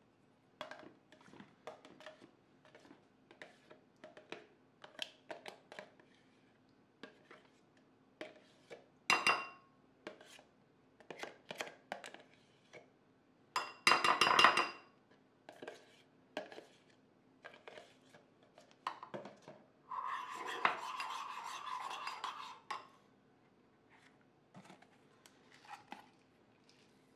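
Metal spoon clicking, scraping and clinking against a ceramic bowl and a plastic tub as thick Greek yogurt is spooned into the bowl. Two louder clusters of clinks come about a third of the way in and halfway, and about three seconds of steady scraping come about three-quarters of the way in.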